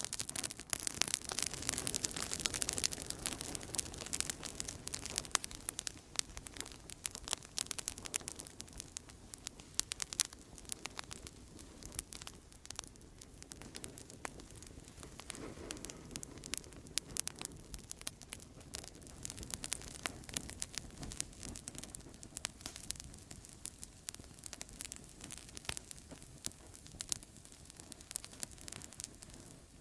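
Outdoor campfire crackling steadily: many small sharp pops and snaps over a soft hiss of burning wood, busiest in the first few seconds.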